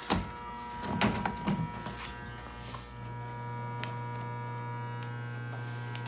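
Manitowoc ice machine running with a steady electrical hum, and a few short knocks in the first two seconds.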